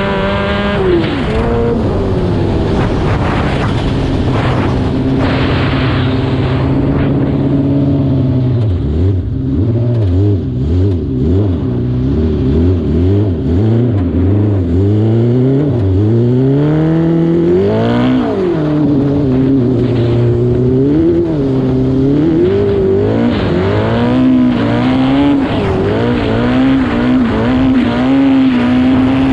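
A custom lawn mower's 600cc Yamaha R6 inline-four motorcycle engine running under load, revving up and down repeatedly as it is driven, with a run of quick revs in the middle and one long climb and fall about eighteen seconds in.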